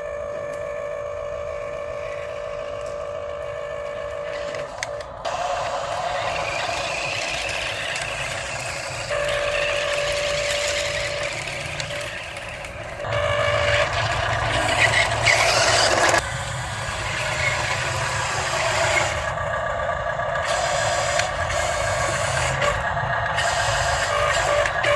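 Radio-controlled model construction trucks working: small motors and gears whine steadily, in spells that change pitch every few seconds. A louder, rougher stretch of gear noise comes about halfway through.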